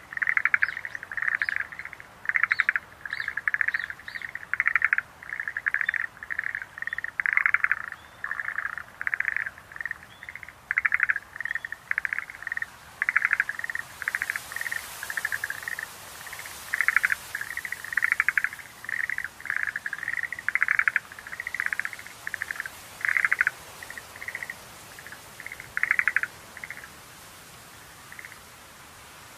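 Schlegel's green tree frogs calling: a run of short, rattling pulsed notes, about two a second, that thin out near the end.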